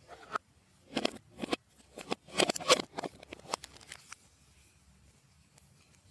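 Slime being squished and mixed by hand: a run of sticky clicks and squelches, thickest two to three seconds in, dying away after about four seconds.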